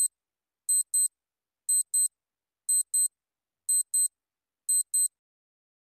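Clock-ticking sound effect timing a quiz countdown: a high-pitched tick-tock about once a second, which stops about a second before the end.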